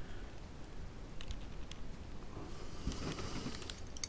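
Faint scattered clicks and soft rustling from hands twisting a gimbal sensor's thin wires, with a small cluster of clicks about a second in, a rustle near three seconds and one more click near the end.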